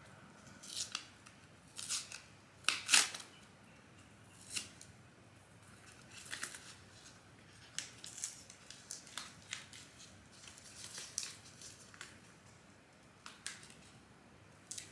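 Paper seed packet of impatiens crinkling and tearing as fingers pick at it, in short irregular rustles, the loudest about three seconds in; the packet is hard to get open.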